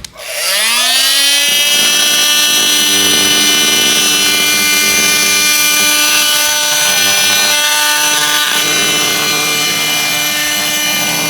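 Oscillating multi-tool with a grout-removal blade, spinning up with a rising whine over the first second or so, then running at a steady pitch while grinding old grout out of tile joints. It is fairly loud.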